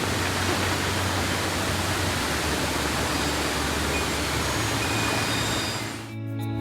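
Steady rush of falling water from a waterfall and stream. It fades out about six seconds in as soft guitar music starts.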